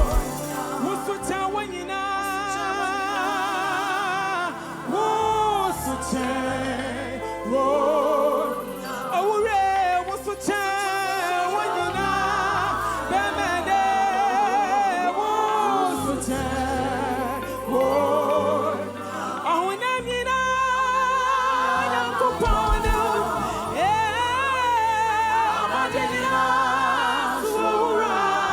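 Gospel worship song: a singer's voice with strong vibrato over held low bass notes that change every second or two.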